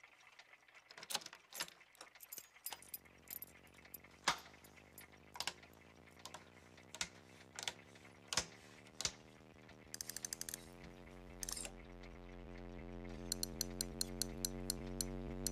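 Switches and knobs on an old electronic control console clicking one after another, as its klystron transmitter is switched on, while a low electrical hum builds underneath as the equipment powers up. Near the end a dial is turned, giving quick runs of ratcheting clicks.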